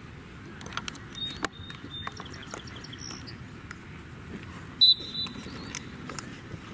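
Scattered short high-pitched squeaks and light knocks over a steady background din, with one loud, brief squeak about five seconds in.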